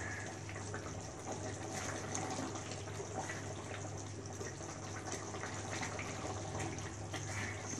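Chicken curry gravy simmering in a karahi while a spatula stirs it, with scattered small scrapes and clicks against the pan over a steady low hum.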